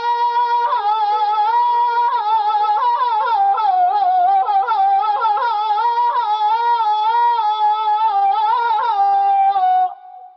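Solo Persian ney playing a slow, highly ornamented melody in Persian classical style: long held notes broken by quick trills and turns, stopping about ten seconds in.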